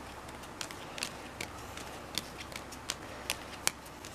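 Playing cards being dealt by hand, each card snapped off the deck with a short crisp click: about ten clicks, irregularly spaced, a little over two a second.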